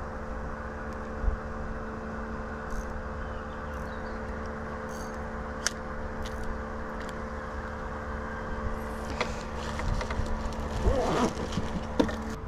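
Road traffic: a steady engine hum over a low rumble, with a vehicle growing louder about ten seconds in and a few sharp clicks.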